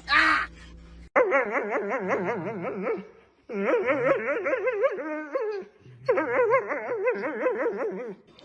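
A dog howling: three long howls, each about two seconds long, with a fast wavering pitch and short breaks between them.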